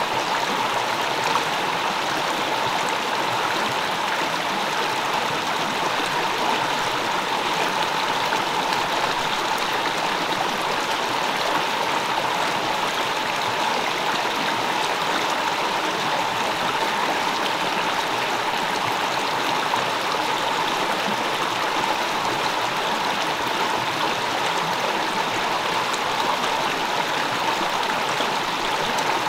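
Steady rush of flowing stream water, unchanging throughout.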